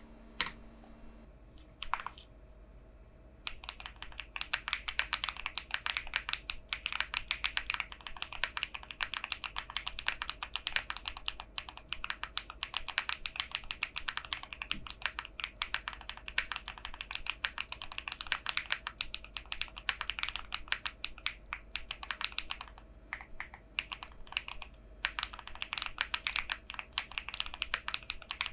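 Haven TKL mechanical keyboard with Gateron Silyworks SLAY Type R switches and PBTFans Pyga PBT keycaps being typed on fast, a dense run of keystrokes. There are a few single key presses and a short pause near the start, and the typing thins out briefly about three quarters of the way through.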